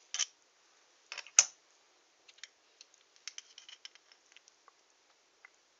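Digital caliper being worked on a silver coin by hand, its jaws sliding and closing: one sharp click about a second and a half in, then a scatter of small faint clicks and scrapes.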